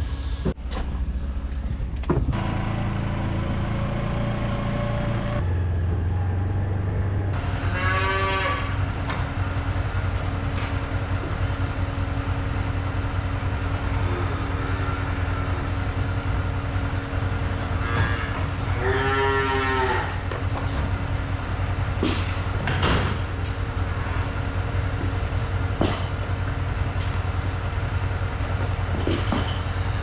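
Young dairy calves bawling, two drawn-out calls about ten seconds apart, over a steady low mechanical hum. A few sharp metal clanks come near the end.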